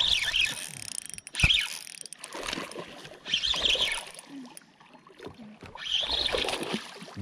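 A fishing reel being cranked in several short rasping spurts while a hooked bass is being fought on a bent rod.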